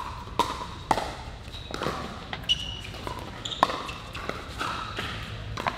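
A pickleball rally: paddles striking the hollow plastic ball, with the ball bouncing on the court, in an irregular string of sharp pocks about one every half second to a second. The hits echo in a large indoor hall.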